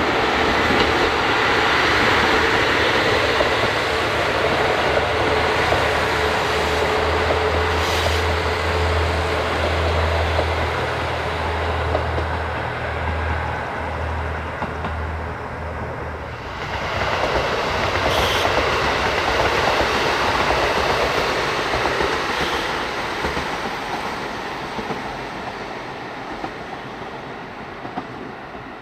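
Diesel train passing close by on the Sekihoku Line: a pulsing engine drone under the clatter and rumble of wheels on the rails. About halfway through the engine drone drops away and the rolling noise swells again, then fades as the train moves off.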